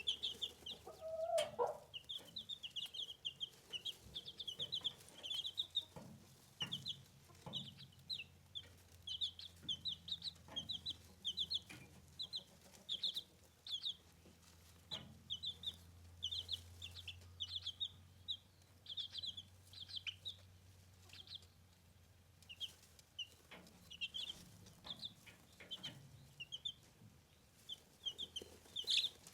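Newly hatched Bresse chicks peeping continuously: a busy stream of short, high cheeps, several a second, with a few soft knocks beneath.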